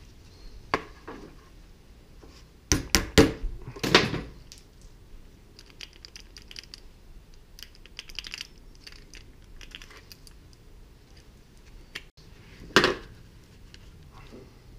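Small hard objects clinking and knocking as they are handled and set down: a single click about a second in, a quick run of knocks about three to four seconds in, light scratchy ticks in the middle, and one more knock near the end.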